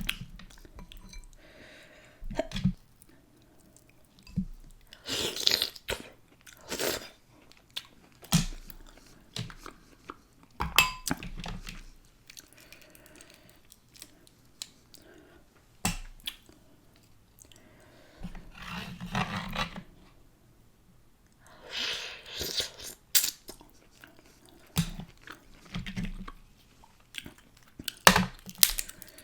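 A person chewing and smacking food close to the microphone, with wet mouth clicks and a few crunchy bites between quiet pauses.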